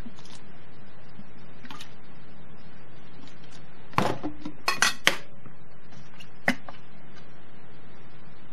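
Metal tablespoon clinking against a metal mixing bowl: one clink about halfway through, a quick run of three just after, and a last one a second and a half later.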